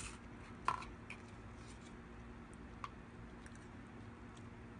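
Quiet eating: a few light clicks of metal spoons against plastic bowls, the loudest about a second in, over a faint steady hum.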